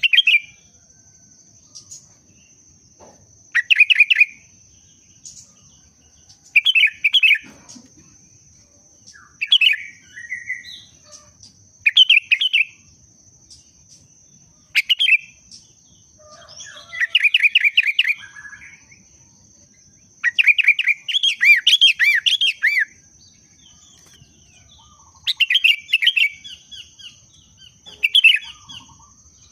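Sooty-headed bulbul singing short, quick, bubbly phrases every two to three seconds, with a couple of longer runs in the middle. This is the lively song of a bird in breeding condition. A faint steady high-pitched whine runs underneath.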